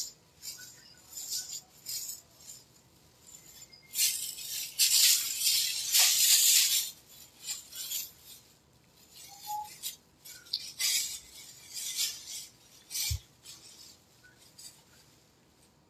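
Thin plastic bag rustling and crinkling as it is handled and stuffed with clothes, in irregular bursts, loudest from about four to seven seconds in.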